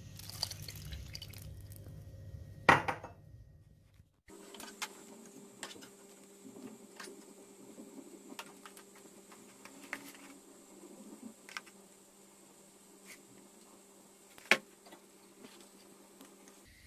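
Water poured from a glass into a pot of boiled manti, followed by a sharp clink of the glass on the pot. Then plastic spoons clicking and scraping on a plate while serving, with one louder clink near the end, over a faint steady hum.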